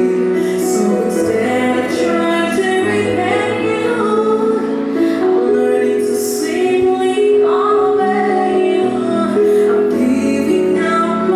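A vocal group singing a worship song in harmony, women's voices leading, with held notes over a low bass part.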